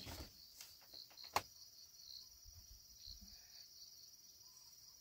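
Steady high-pitched insect chirring with a fine pulsing texture, with one sharp click about a second and a half in.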